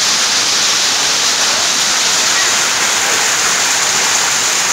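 Heavy rain mixed with hail pouring down onto the ground and grass, a loud, steady hiss.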